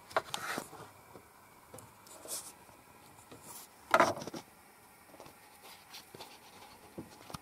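Kitchen knife slicing porcini mushrooms on a wooden cutting board: a few sharp knocks of the blade on the board, the loudest about four seconds in, with faint scrapes and ticks between.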